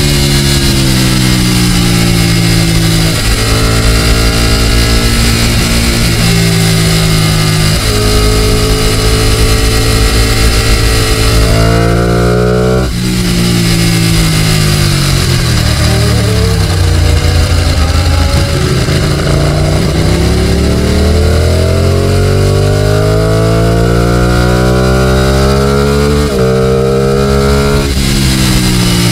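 Ducati Panigale 899's V-twin engine pulling hard through the gears: the pitch climbs and then drops sharply at each gear change, winds down for a few seconds in the middle as the bike slows, then rises again under acceleration. Steady wind rush runs underneath, heard from the rider's helmet.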